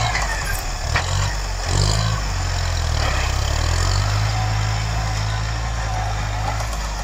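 Farm tractor engine running steadily under load while pulling a plow through the field, with a couple of brief knocks about one and two seconds in.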